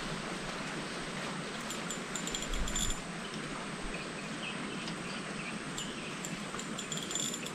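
Steady open-air ambience on a river: a wash of wind and water with a few faint, short high chirps, and a brief low rumble of wind on the microphone just before three seconds in.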